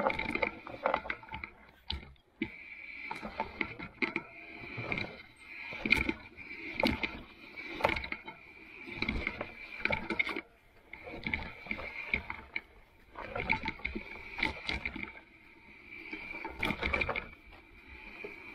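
Electric fat bike ridden over rough ground: a steady high motor whine that cuts out a few times, under repeated knocks and rattles from the bike over bumps.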